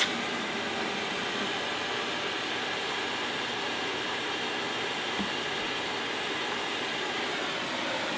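Oxyacetylene torch burning with a steady hiss.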